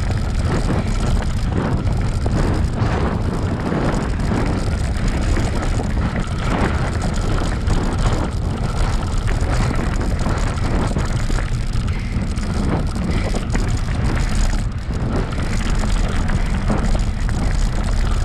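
Wind buffeting the microphone over the rumble of a bicycle rolling fast on a dirt trail, with frequent small knocks and rattles from bumps.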